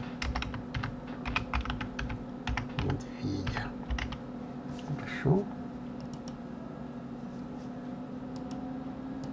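Typing on a computer keyboard: a quick run of key clicks for about five seconds, thinning out and stopping after that, over a faint steady hum.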